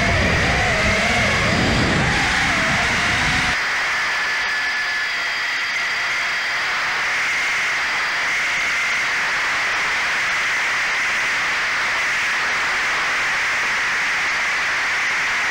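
Steady rush of air with a thin, steady high whine from the RC plane's motor and propeller in flight. For the first three and a half seconds a lower, wavering motor tone with a rumble sits under it, then drops away suddenly, leaving mostly hiss.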